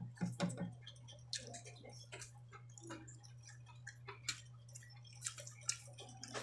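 Eating sounds up close: irregular small clicks and smacks of chewing, spaced out unevenly, over a steady low hum.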